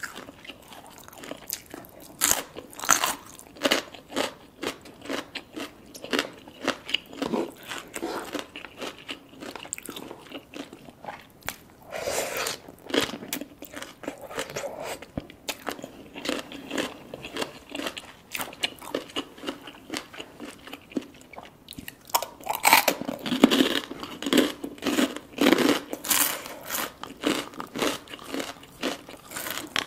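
Close-miked crunching bites and wet chewing of green papaya salad with raw long beans, many crisp bites one after another, loudest in a quick run of bites near the end.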